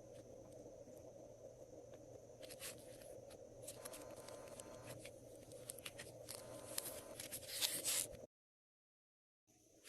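Glossy slime being worked by hand, with soft sticky clicks and scraping crackles that grow busier and louder toward the end, then cut off abruptly into silence over a faint steady hum.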